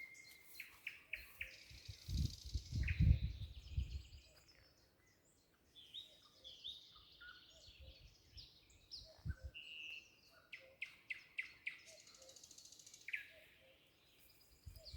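Several small songbirds singing, with short chirps and quick trills overlapping one another. A few low muffled bumps are heard about two to four seconds in.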